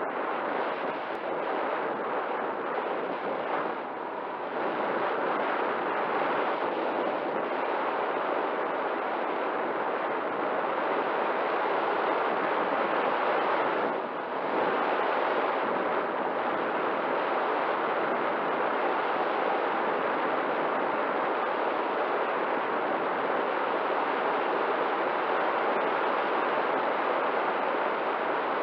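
Steady wind rush from air streaming past the camera microphone on an RC glider in flight, briefly dropping in level about four seconds in and again near fourteen seconds.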